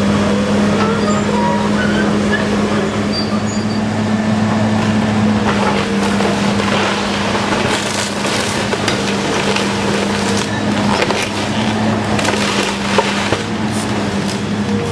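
A heavy machine's engine runs steadily while a wood-framed house is torn down. From about six seconds in, there are repeated cracks and crunches of splintering, breaking wood.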